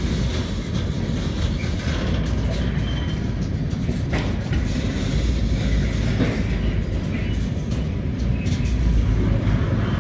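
Container freight train's flat wagons rolling past at close range: a steady rumble of steel wheels on the rails with scattered clicks.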